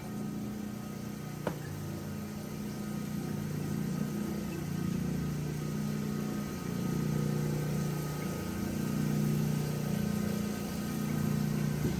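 A ten-inch HiTech Diamond lapidary slab saw running steadily with a low hum while its diamond blade cuts through a geode. There is one sharp click about a second and a half in.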